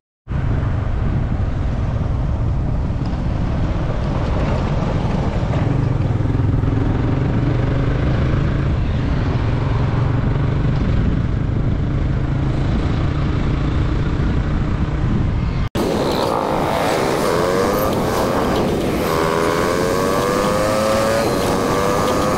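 Motorcycle engine running while riding, over a steady low wind rumble. After a brief cut about two-thirds of the way in, the engine note rises steadily in pitch as the bike accelerates, with a break partway through the climb.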